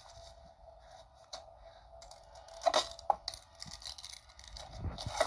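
Film sound effects in the dark: scraping and rustling with a few sharp clicks over a faint steady whine, the sound of a grave being dug into while a camera flash pops and recharges.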